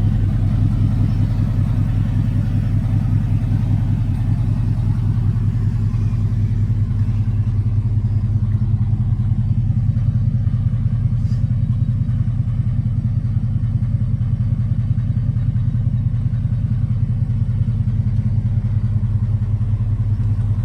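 Pickup truck engine idling steadily with an even low hum.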